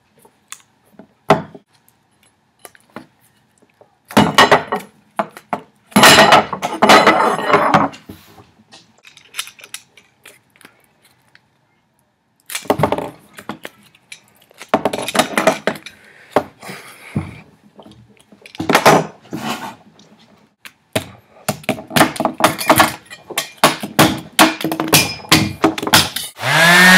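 Hand tools such as pliers and cutters clicking, scraping and knocking against a small toy's shell as it is pried and cut at, in irregular bursts of clicks and knocks.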